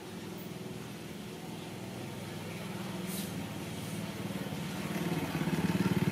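A motor vehicle engine running with a low, steady hum that grows louder toward the end, as if it is drawing near.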